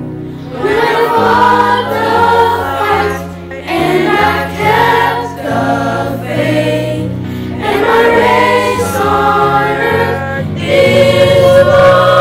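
Children's virtual choir singing a gospel song in phrases over sustained low accompaniment notes, swelling into a louder held chord near the end.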